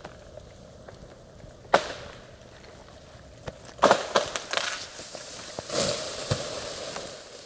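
Ice-laden treetop snapping off under the weight of freezing rain. A sharp crack comes first, then a loud burst of cracking and splintering about four seconds in as the top breaks away, and a rustling crash with one more crack a little later as it comes down through the iced branches.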